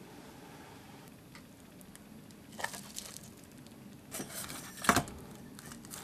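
Kitchen handling sounds during food preparation: a few short clicks and knocks, the loudest about five seconds in.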